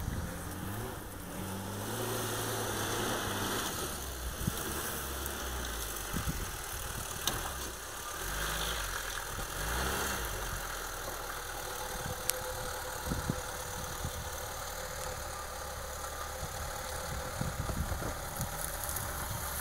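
Lada Niva's engine running at low revs as the 4x4 crawls over a gravel mound, its note rising and falling a little, with a few scattered clicks.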